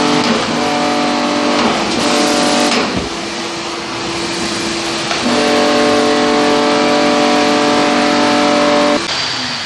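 Motor of a grout-cleaning extraction machine (spray with vacuum recovery) running with a steady whine over rushing air and water. Its pitch shifts a few times as the load changes, and near the end it is switched off and winds down.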